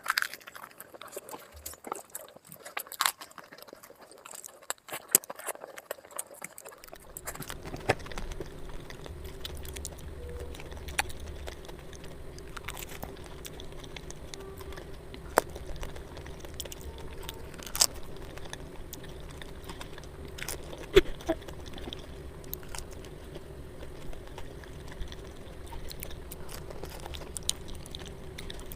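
A person eating crunchy street food close to the microphone: scattered crunches, bites and mouth clicks. From about seven seconds in, a steady low hum runs underneath.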